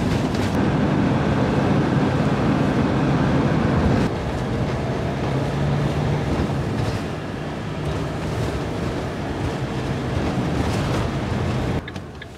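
Campervan driving on a wet road, heard from inside the cab: steady engine hum under the hiss of the tyres and wind. The sound changes abruptly about four seconds in and drops near the end.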